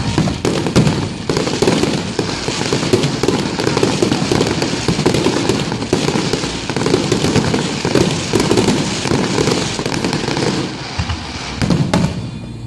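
Fireworks display going off in a dense, continuous barrage of bangs and crackles, thinning out near the end.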